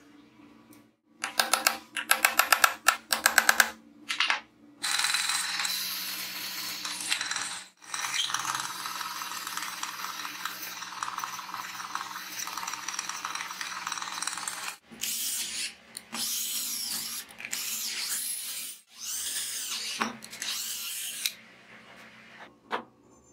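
Drill press boring holes into a laminated plywood block with a wood bit: several runs of steady cutting noise with short breaks between them. Before the drilling starts there is a short run of loud rapid clicking.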